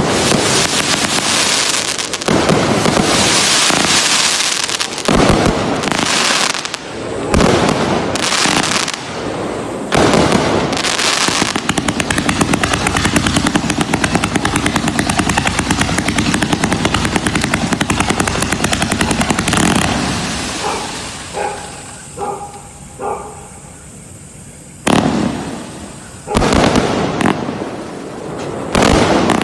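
A 258-shot consumer fireworks cake with 0.8- and 1.2-inch tubes firing volley after volley of loud shots and aerial bursts with crackle. A long, fast stream of shots runs through the middle. About three-quarters through it goes quieter with a few crackles, then loud volleys start again near the end.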